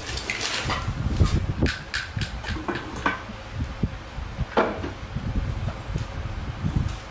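Crinkling plastic bags and clattering empty plastic bottles as a bag of bottles is set down and stowed, with a run of sharp knocks over the first few seconds and a short crinkle about halfway through. Low thuds from items being moved about run under it.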